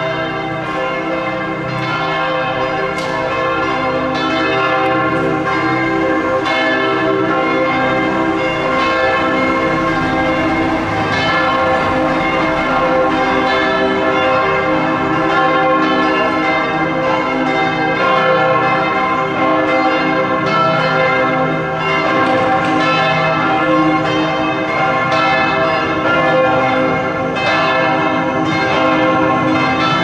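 Several large church bells of Bern's Heiliggeistkirche (the church by the railway station) pealing together, their strokes overlapping into a continuous ringing.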